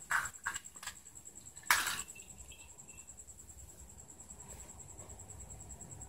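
A kitten scrabbling and batting a toy on a tiled floor: a few short knocks and scuffs in the first two seconds, the loudest just before two seconds in, then it goes quiet. A faint, steady high-pitched pulsing tone runs underneath.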